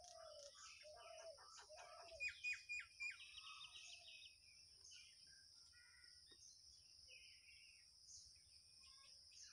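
Faint birdsong: several birds chirping and calling, busiest in the first four seconds, with a quick run of four short descending chirps and a fast trill, over a steady high-pitched drone.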